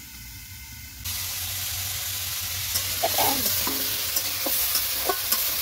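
Cubed carrot, beetroot and potato sizzling in hot oil in a metal kadai, the hiss starting suddenly about a second in as the vegetables hit the oil. A metal ladle stirring them clicks and scrapes against the pan.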